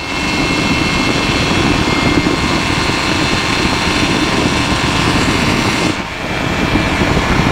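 Flylight PeaBee flexwing microlight's engine and propeller running steadily at climb power, mixed with rushing air, with a brief dip in level about six seconds in.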